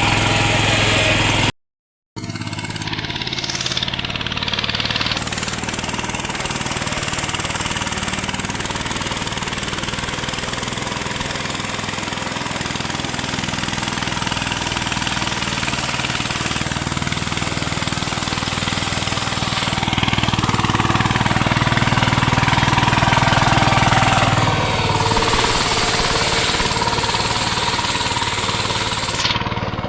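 VST power tiller's single-cylinder diesel engine running steadily, with a brief total dropout about two seconds in and a few seconds of louder running past the middle.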